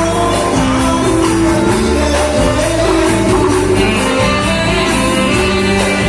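Live dance-band music with a steady beat, a singer's voice over it.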